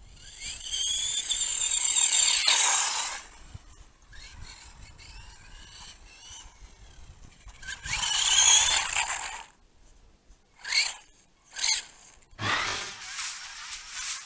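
Motor of a 1/18-scale electric RC buggy whining and rising in pitch as it accelerates: a long run in the first three seconds and another about eight seconds in, with short throttle blips near the end.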